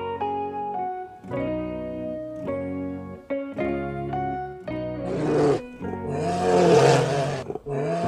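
Background music of plucked-string notes, with a bear growling twice over it in the second half: a short growl, then a longer, louder one.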